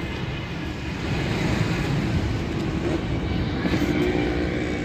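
Road traffic passing on the bridge: a steady rumble of vehicle engines and tyres, with one engine's hum coming up in the second half.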